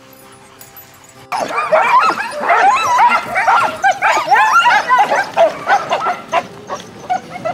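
A team of harnessed sled dogs yipping and howling all at once, many overlapping rising and falling calls, breaking out suddenly about a second in: the eager clamour of dogs hitched to a wheeled rig and waiting to run.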